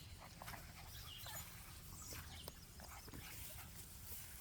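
Faint scattered rustles and a few short, faint high squeaks from seven-week-old Miniature American Shepherd puppies at play.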